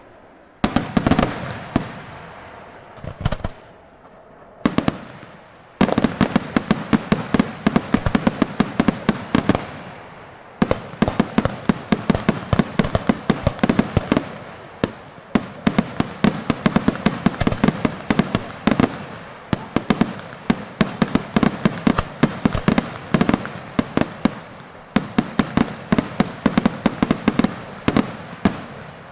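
Daytime fireworks display: a few separate bangs in the first seconds, then dense rapid strings of firecracker bangs, many a second, with a brief lull near the ten-second mark.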